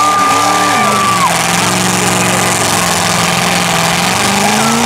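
Demolition derby car's engine held at high revs, its pitch steady and then rising near the end, over a cheering crowd.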